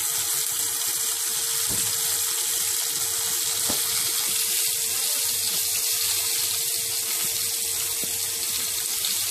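Floured pieces of river fish sizzling steadily in hot oil in a cast-iron skillet, frying to a golden crust. A faint steady hum runs underneath.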